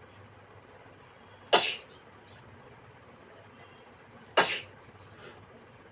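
A woman sneezing twice, about three seconds apart, each sneeze a short sharp burst.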